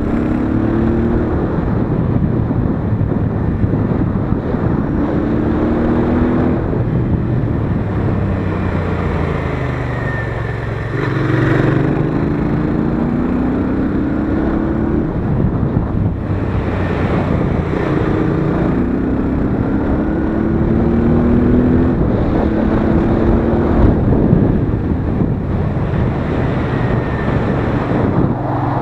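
Royal Enfield Interceptor 650's 648 cc parallel-twin engine and exhaust running under way. The pitch climbs and then drops several times as the bike accelerates and changes up through the gears, with wind on the microphone.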